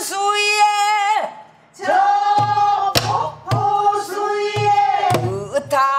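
Korean Namdo folk-style singing in long held notes with a wavering pitch, over a buk barrel drum struck with the palm and a stick. Low drum strokes sound under the singing, with a few sharp stick clicks on the drum's wooden body, about three seconds in and near the end.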